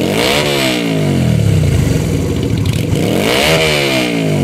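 Yamaha XV250 Virago's air-cooled V-twin through homemade open drag pipes, revved twice, each time rising quickly and falling back to idle. A quarter turn on the mixture screw has cured the lean-running popping, and it revs cleanly.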